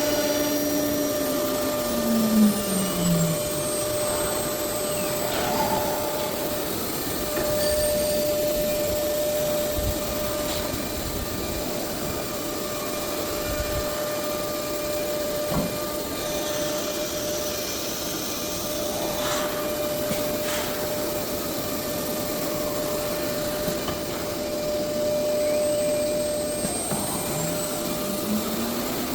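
CNC router running with a steady hiss and a steady whine. Its spindle drops in pitch over the first few seconds, and a tone rises back up near the end as the spindle spins up again.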